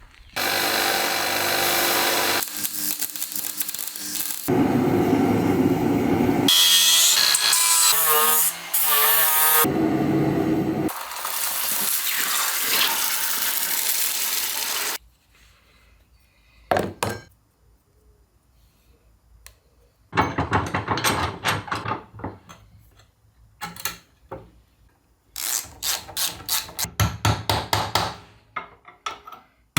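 Workshop tools at work in short cut-together bursts: a power tool running loudly with changing pitch through the first half, then scattered clicks, then runs of rapid sharp strikes like hammering near the end.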